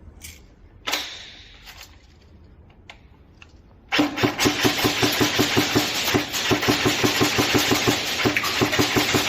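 An airsoft gun fires one long full-auto burst of rapid, evenly spaced shots, starting about four seconds in and lasting about five seconds. Before it there is a single sharp click about a second in.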